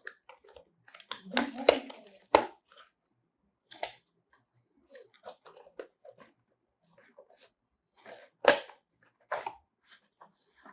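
Retail packaging of a USB Wi-Fi adapter being opened and handled: irregular crinkles, rustles and clicks, loudest about two seconds in and again about eight and a half seconds in.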